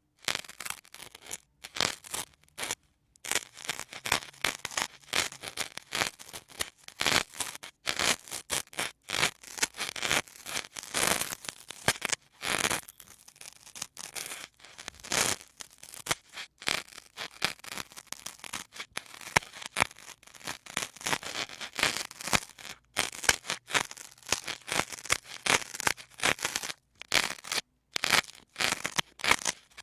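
Sponges worked close to the microphone: a fast, dense run of crisp, crackly scratching and rubbing sounds, broken by a few short pauses.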